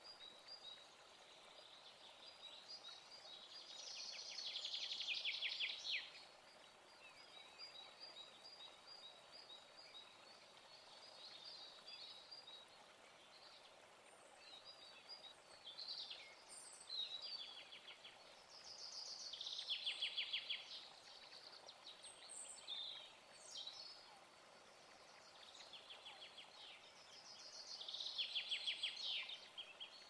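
White-throated kingfisher giving its whinnying trill: three loud, rapid rattles that slide down in pitch, near the start, in the middle and near the end, with shorter calls between. A faint high, pulsing note runs under the first third.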